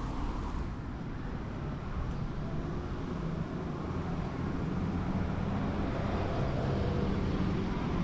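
Roadside traffic: motor vehicle engines running nearby over steady outdoor street noise, with a low engine hum that grows a little louder in the second half.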